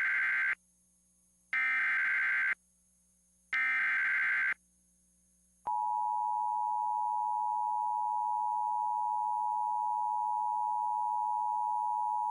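Emergency Alert System header: three roughly one-second bursts of screechy data tones, a second apart, then the steady two-tone EAS attention signal starting about halfway through. Together they signal the start of a broadcast emergency alert, here a severe thunderstorm warning.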